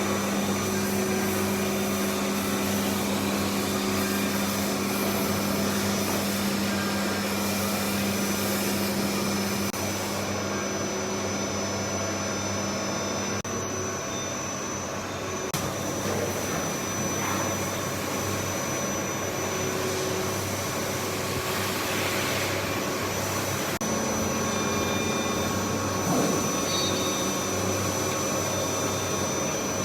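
CNC machining centres running on a machine-shop floor: a steady mechanical hum and noise with several held steady tones, which shift slightly about ten seconds in and again near 24 seconds.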